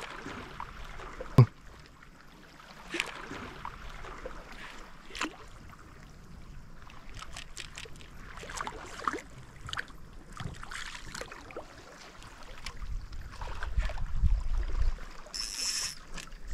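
Small waves lapping and trickling over a shallow reef flat, with scattered light clicks. A low rumble builds near the end.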